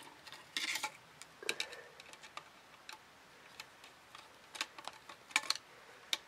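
Faint, irregular small clicks and taps as wires are fitted into the terminals of a plastic cooker socket with a screwdriver, with a short rustle of cable just under a second in.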